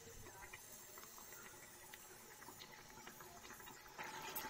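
Faint sizzling and crackling of chopped onions frying in hot mustard oil, with scattered small pops; it grows a little louder near the end.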